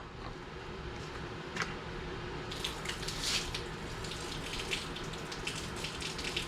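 Water from the garden-hose supply flowing steadily through the pressure washer's hose and wand with the pump off, a running-water hiss that brightens in spurts about halfway through. The flow shows the line is open up to the tip, which the owner suspects is clogged.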